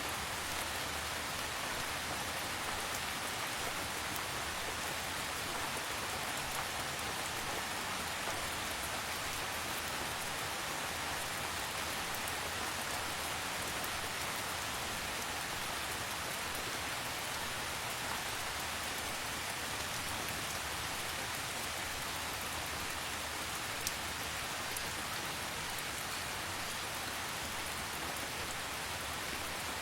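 Steady rain falling, an even hiss of many drops with no let-up; one brief sharper tick late on.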